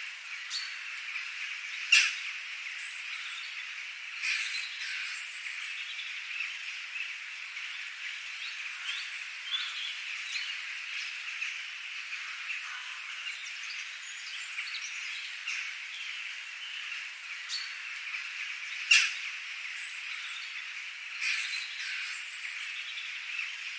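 Birds chirping and calling over a steady outdoor background hiss. Two sharp clicks stand out, one about two seconds in and one about three-quarters of the way through.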